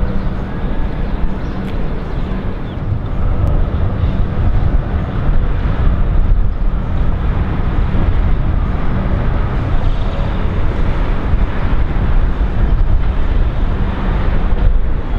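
Steady rumble of busy city road traffic, cars and trams, with no single vehicle standing out.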